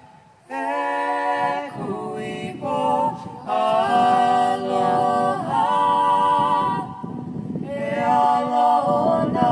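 Unaccompanied Hawaiian chant for hula, sung in long held notes with a wavering vibrato, in phrases broken by short pauses.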